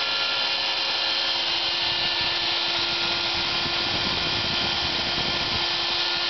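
Router spindle of a homemade CNC milling machine running at high speed with a steady whine, its bit cutting a circular pocket into a laminated board. A rougher low rumble of the cut joins in from about two seconds in.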